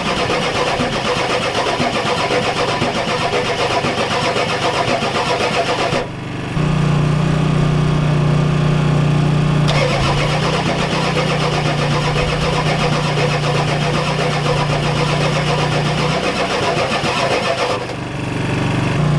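Ford 7.3L IDI V8 diesel cranking over on the starter in long stretches, with brief breaks about six seconds in and again near the end. This is a hard start that the owner blames on a weak injection pump not getting fuel to the injectors.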